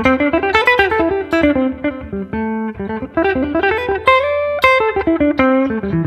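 Electric guitar with an f-hole body and humbucking pickups, played as a fast single-note blues lick with the strings hammered heavily by the pick, giving each note a hard attack.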